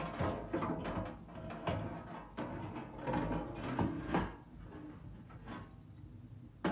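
Wood fire crackling and popping in a brick stove's firebox, with knocks and scrapes of a sheet-metal cover being lowered over the opening with a poker hook. The crackling grows fainter and sparser about four to five seconds in, once the opening is covered.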